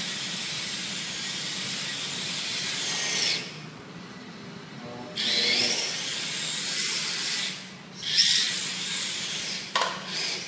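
Electric RC drift cars sliding on a hard terrazzo floor. The motors whine and the tyres hiss, rising and falling in bursts as the throttle is worked on and off to swing the tail out. The sound cuts out twice, and there is a sharp click near the end.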